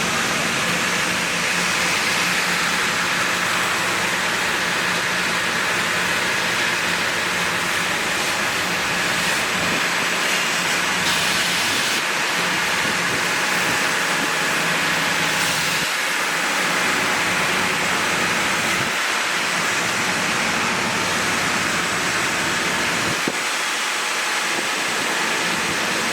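SUD630R-R top-and-bottom wood board sanding machine running: a steady, even rushing noise with a low hum underneath.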